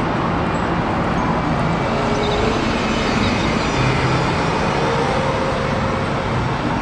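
Red double-decker city bus driving away past the camera: a steady engine hum under dense road and traffic noise.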